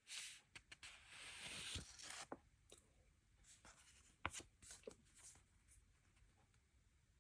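Faint rustling and scratching of packaging being handled and opened, with scattered light clicks and taps; the sharpest tap comes a little after four seconds in.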